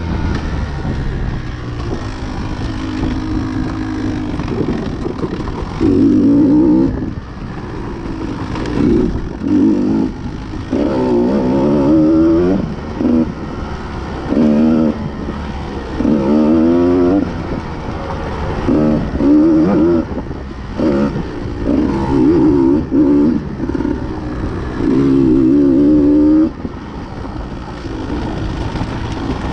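KTM XC-W dirt bike engine being ridden hard on a trail, the throttle opened and closed over and over: about a dozen loud bursts of revving, the pitch rising and wavering in each, falling back between them, with rattling and scraping underneath.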